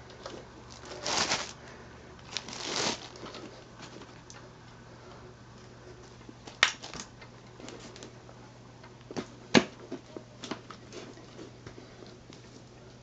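Hand work on a bicycle frame with tools and bolts: two short scraping rustles near the start, then scattered sharp metallic clicks and taps, the loudest about halfway through and again a few seconds later.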